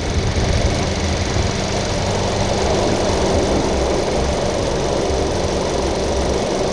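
Audi S3 8V's turbocharged 2.0 TFSI four-cylinder engine running steadily, with no distinct blow-off or diverter-valve release heard.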